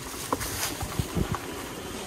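A small bike's tyres rolling fast over dry leaves on a woodland floor, with a rushing crackle of leaves and several short knocks as it bumps over the ground.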